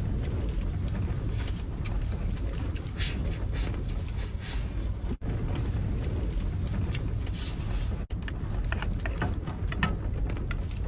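Strong wind rumbling steadily against the camper van, with scattered small clicks and taps.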